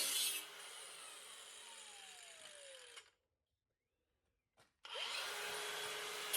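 Power tool cut off and winding down, its whine falling steadily over about two and a half seconds. After a moment of dead silence the tool is running again, louder near the end.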